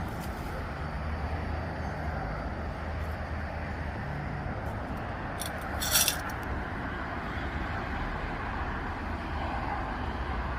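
Steady low background hum and noise, with a brief metallic jingle about six seconds in.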